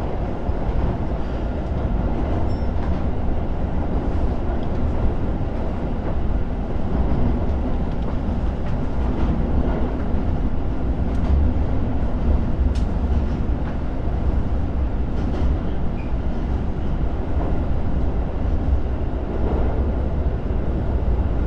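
JR Joban Line commuter train running over the Tone River steel bridge, heard from inside the car: a steady, loud rolling rumble of wheels on rail, with a few faint clicks.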